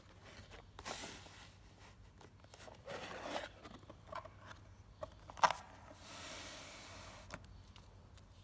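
A cardboard box being opened and handled, its flaps scraping and rustling, then a few sharp clicks and taps as plastic-packed stainless steel escutcheons are picked out, the loudest click about five seconds in. A soft steady rustle of the plastic packaging follows.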